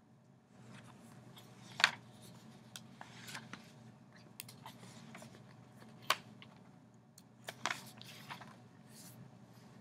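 Scattered light clicks, taps and short rustles over a steady low hum, with sharper clicks about two seconds in, around six seconds and near eight seconds.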